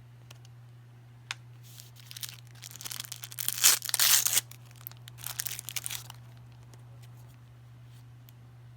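Toy surprise-egg packaging being torn open and crinkled by hand: a long tearing, crumpling spell that peaks in the middle, then a shorter, softer bout of crinkling.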